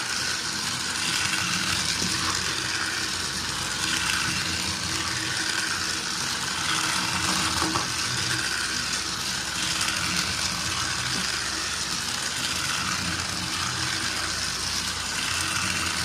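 Motorized toy electric train running: a small electric motor and plastic gears whirring and clattering continuously at an even level.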